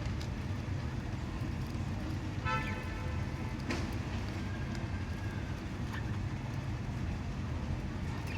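Steady low background rumble like road traffic, with a short pitched call about two and a half seconds in and a few faint clicks.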